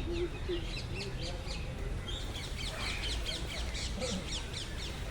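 Several small birds chirping in quick, short, downward-sliding notes, busiest in the middle, over a steady low rumble.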